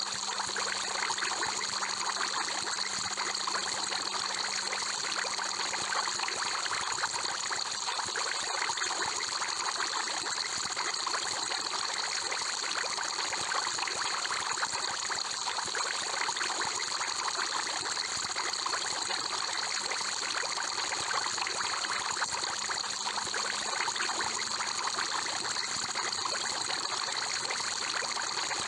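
Aquarium water bubbling and trickling steadily without a break, as from an air-stone bubble column.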